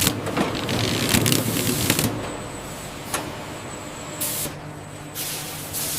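Machinery running with a steady low hum, overlaid by several short hissing bursts and a few sharp clicks.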